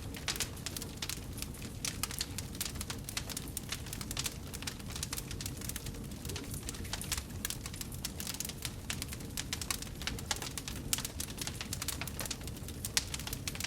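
Wood fire crackling in a fireplace: dense, irregular pops and snaps over a steady low rumble.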